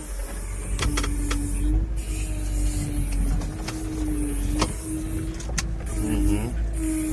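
The Veter all-terrain vehicle crawling over boulders: a low engine rumble under a steady whine, which dips and wavers briefly near the end, with several sharp knocks.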